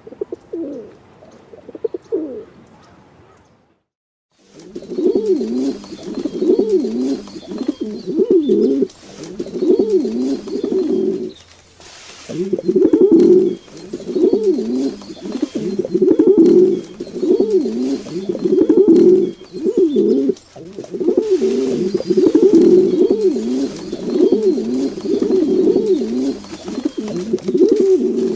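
Pigeons cooing: low coos repeated every second or two, with several birds overlapping. After faint coos at the start there is a second of silence about four seconds in, then the cooing comes back loud and runs on without a break.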